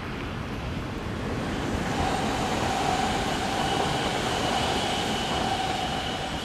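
ODEG Stadler KISS double-deck electric multiple unit running along the track: a rumble of wheels on rail that swells about two seconds in, with a steady high whine held over it until near the end.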